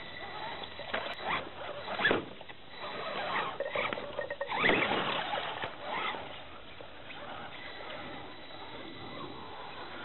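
Scraping, crackling and rustling on rock and dry leaves from the first six seconds, with two sharp knocks, about two seconds in and just under five seconds in, then a quieter, even background.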